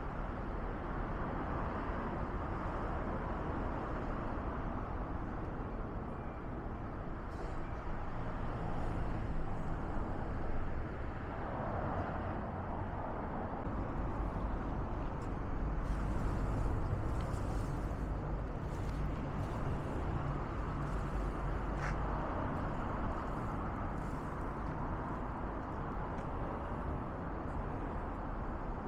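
Fallen leaves burning in a smokeless charcoal kiln: a steady rushing noise with a low rumble, and a few faint crackles.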